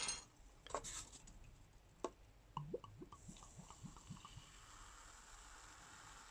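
Heavily carbonated soda poured from a bottle into a paper cup: a brief knock at the start, then a run of short plops as it pours, and from about halfway a steady, quiet fizzing hiss of bubbles in the cup.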